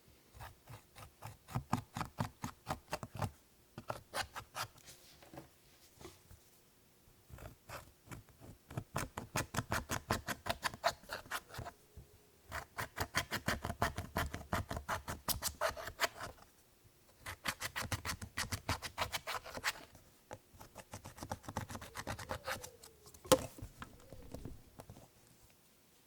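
Clear slime being kneaded and pressed by hand, giving off rapid sticky clicks and pops, several a second, in runs of a few seconds with short pauses, and one sharper snap near the end.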